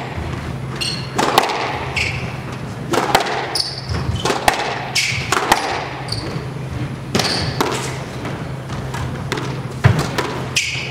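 Squash rally: the ball is struck by racquets and cracks off the walls with sharp impacts about once a second. Short high squeaks of court shoes on the hardwood floor fall between the hits.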